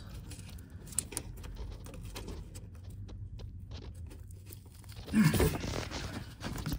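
Small clicks and rustling of fingers working a plastic two-stage-lock wiring connector and its harness on the engine intake, with a short louder noise about five seconds in.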